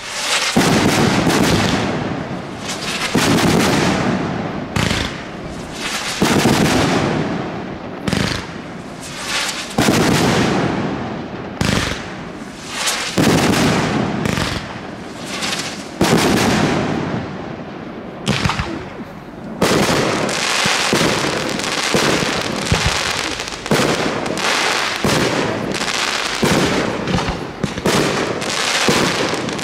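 Fireworks display: a long run of loud bangs from aerial shells bursting, each one fading away over a second or two. The bangs come close together and overlap from about two-thirds of the way in.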